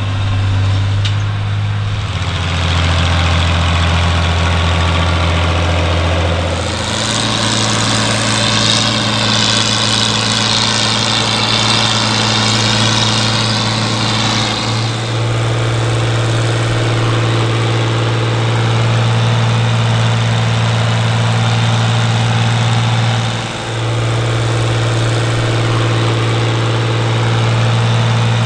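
Fiat tractors' diesel engines running with open exhaust pipes under steady field load. The engine note holds level but changes pitch several times as the sound switches between the two tractors, and a higher whine mixes in for several seconds in the middle.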